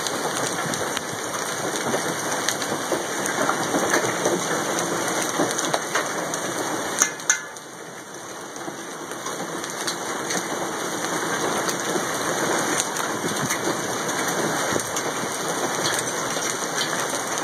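Hail pounding on a house roof and bare ground: a dense, steady hiss of falling ice with scattered sharp clicks of hailstones striking. It drops off briefly about halfway through, then builds back to full strength.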